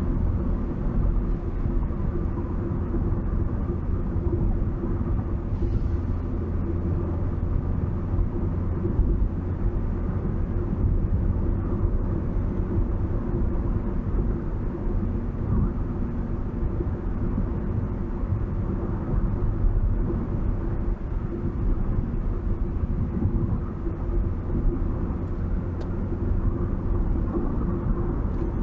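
A vehicle driving along, heard as a steady low rumble of engine and tyre-on-road noise, with no sudden events.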